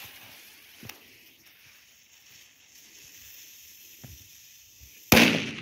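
A half-gram mini Dumbum firecracker's fuse hissing steadily, then a single sharp bang about five seconds in.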